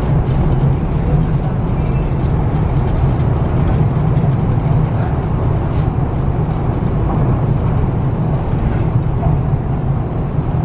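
MTR East Rail Line R-train running between stations: a steady low rumble of wheels on the track and the train's running gear.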